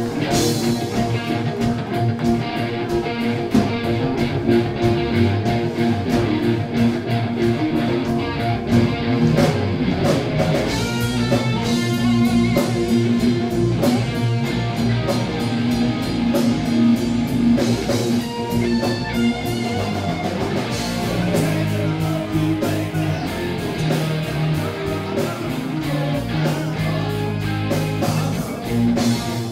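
Live rock band playing: electric guitars over bass guitar and drum kit, a continuous blues-rock passage with no singing.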